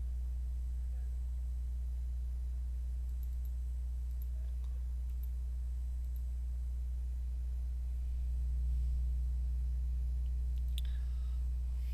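Steady low electrical hum in the recording, with a few faint clicks, likely of a computer mouse.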